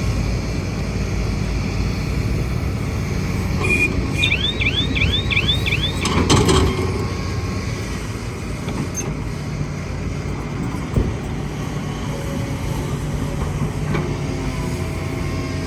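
Kobelco excavator's diesel engine running steadily under work. About four seconds in comes a quick run of five high squeaks, and just after six seconds a louder clunk.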